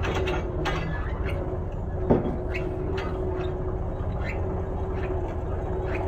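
Small compact tractor's engine running steadily under way, a constant drone with low rumble, overlaid by scattered rattling clicks and a sharper knock about two seconds in.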